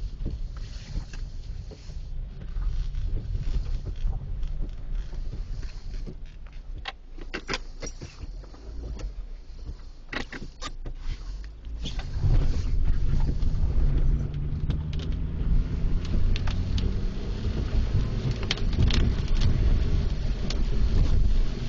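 Low vehicle rumble with scattered clicks and rustles of the phone being handled. About twelve seconds in it grows louder, with a steady low engine-like drone.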